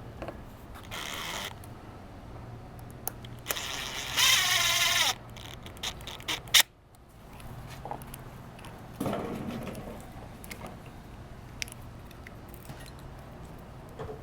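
Hand-work noises from fitting and trimming the probe on a motorized roll screen's bottom bar: short scrapes, and a louder rasping zip for about a second and a half around four seconds in. A sharp click comes about halfway through.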